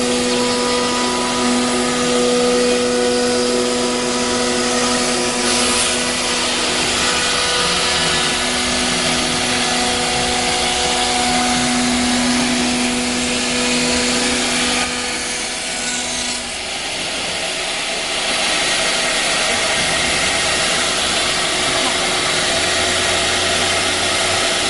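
CNC router with a 6 kW HSD spindle running and cutting: a steady whine over continuous cutting noise. About 16 seconds in, the whine drops away and the cutting noise becomes fuller.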